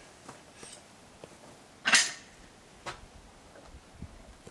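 Fury 20mm big-bore air rifle firing a single shot: one short, sharp report about two seconds in, with a few faint clicks of handling around it.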